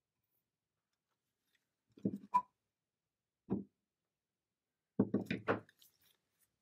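Wooden furniture parts knocking on a workbench as a stained wooden leg is handled and set down: a few quick knocks about two seconds in, a single one a moment later, and a rapid run of knocks about five seconds in.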